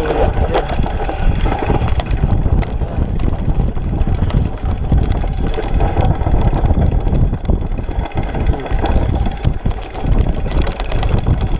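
Wind buffeting the microphone while a mountain bike rolls downhill over loose rocky gravel. A steady rumble carries scattered clicks and rattles from tyres on stones and the bike, busier near the end.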